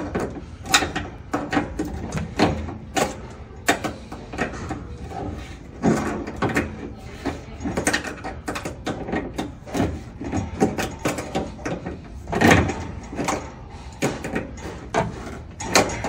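Metal fittings and hand tools clicking and knocking irregularly as the hot water supply connector is threaded and tightened onto a water heater. The loudest knocks come about six seconds in and again near the two-thirds mark.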